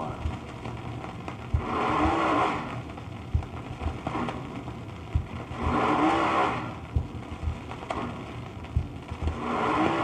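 Recorded drag-racing funny car engine (a 429 Ford) revving in short bursts about every four seconds, played back from a worn cardboard record. Steady surface hiss runs throughout, and a low click from the damaged record comes once per turn, about every two seconds.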